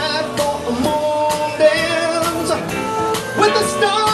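Live band playing a slow soft-rock song, with a man singing long held notes into the microphone over drums and keyboards.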